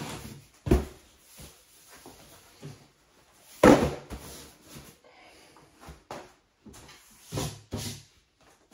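Knocks and thumps from handling a particleboard bathroom vanity cabinet and a cardboard product box and setting them down, with the loudest thump about halfway through and a quick pair of knocks near the end.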